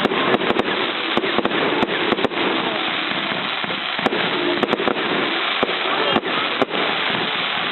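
Fireworks display: a dense, continuous crackling with many sharp bangs and pops scattered irregularly throughout.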